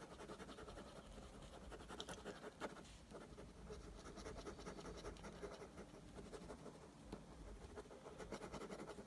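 Faint scratching of a pen on paper: many quick, short strokes as shading is hatched into a drawing.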